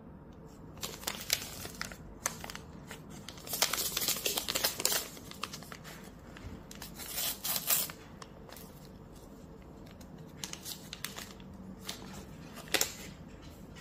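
A small sachet of fast-action dried yeast being crinkled and torn open by hand, in bouts of crackly ripping that are loudest about four and seven seconds in. There is a single sharp snap near the end.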